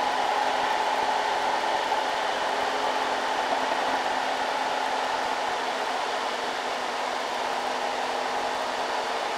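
Diesel engine of a heavily loaded Isuzu light truck pulling up a steep grade: a steady drone with a whine over it, easing off slightly as the truck moves away.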